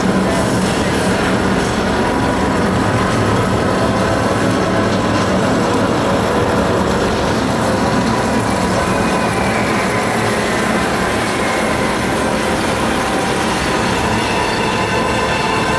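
Sound effects from the light show's loudspeaker soundtrack: a loud, steady, train-like rumbling clatter, with a few held tones coming through it in the second half.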